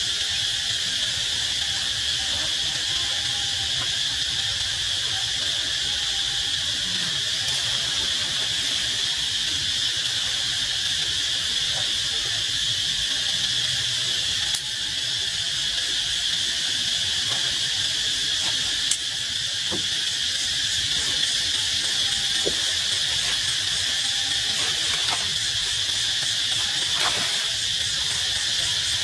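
Steady high-pitched insect chorus droning without a break.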